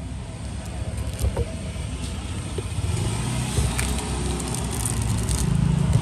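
Road traffic rumbling steadily in the background, with a vehicle engine growing louder near the end. A few sharp clicks stand out over it.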